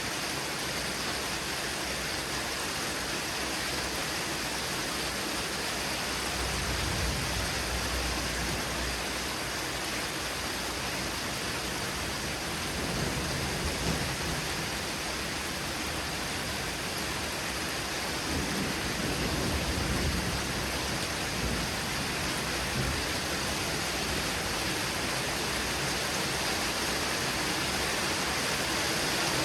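Heavy rain falling steadily during a thunderstorm, with low rumbles of thunder rolling in three times.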